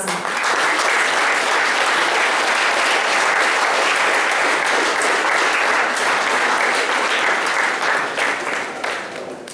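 Audience applauding, a steady patter of many hands clapping that dies away over the last second or so.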